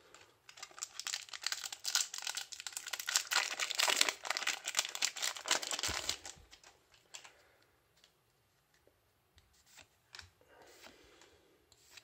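A Yu-Gi-Oh booster pack's foil wrapper being torn open and crinkled for about six seconds, followed by quieter, sparse rustling as the cards are handled.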